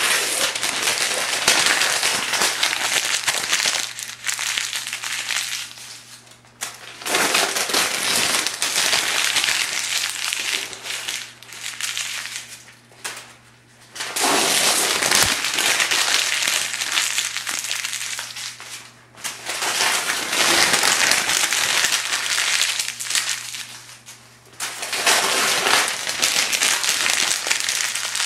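Thin phone book pages being crumpled by hand into balls: dense paper crackling and crinkling in about five long bouts, with short pauses between.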